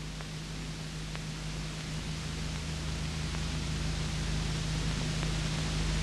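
Steady hiss with a low electrical hum underneath, slowly growing louder: the noise floor of an old analogue film soundtrack with no narration or music playing.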